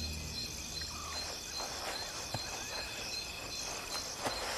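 Night insects trilling in a steady high-pitched chorus, with a few faint rustles about halfway through.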